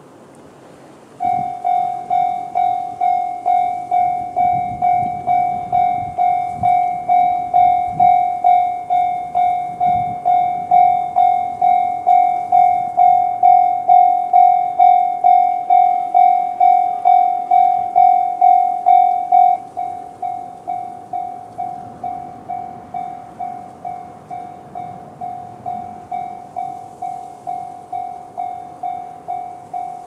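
Japanese level-crossing warning bell, JR standard electronic sound, starting about a second in: a single-pitched ding repeating about twice a second. Partway through it steps down to a quieter level once the barriers are down, as JR crossings lower the alarm volume after the gates close.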